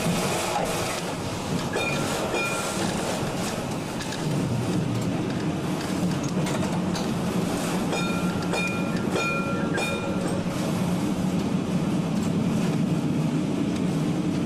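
Vintage W2-class electric tram running along its track, heard from the front platform: steady wheel-on-rail rumble and clatter with a low hum that grows louder about four seconds in. Short high tones sound briefly twice.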